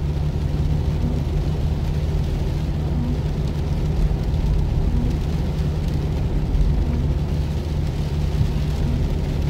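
Steady engine and tyre noise heard inside a Jeep's cabin while driving on a wet road, with a faint soft sound repeating about every two seconds.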